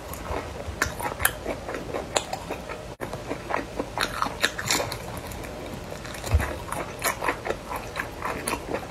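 Close-miked biting and chewing of crispy deep-fried pork intestine: a run of short, crackly crunches and wet chewing. The sound cuts out for a moment about three seconds in, and there is one low thump a little past six seconds.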